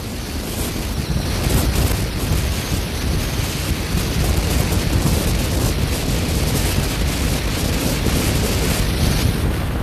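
Wind buffeting the microphone of a moving motorcycle, a steady low rumble with hiss over it, swelling a little about a second in.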